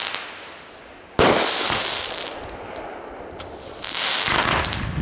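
Fireworks aerial shells bursting: a sharp bang about a second in, its crackling sparks trailing off, then a second burst near four seconds.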